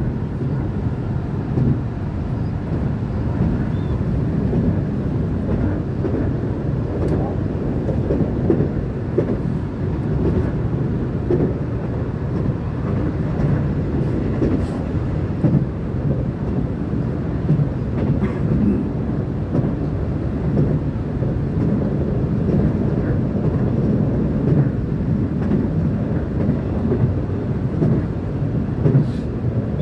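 Inside an electric commuter train running at speed: a steady rumble of wheels on rail, with now and then a short click.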